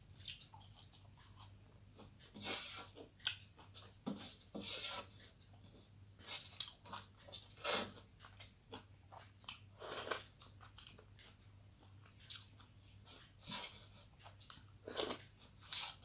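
Close-up chewing and crunching of a mouthful of rice and fried vegetables eaten by hand, in irregular short bursts. Fingers now and then scrape food together on a metal plate.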